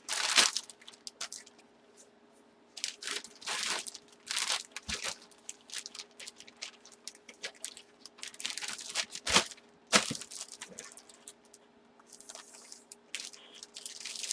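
Plastic packaging bags crinkling and rustling in irregular handfuls, with a couple of sharp clicks a little past the middle.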